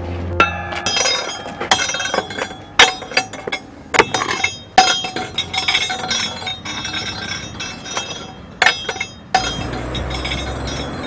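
A rapid, irregular series of sharp clinks and crashes of glass, each with a short ringing tail. About nine seconds in it gives way to the low rumble of a car driving past.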